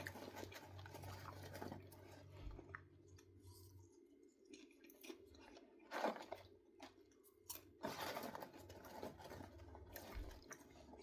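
A person chewing popcorn: faint, irregular crunches, the clearest about six and eight seconds in.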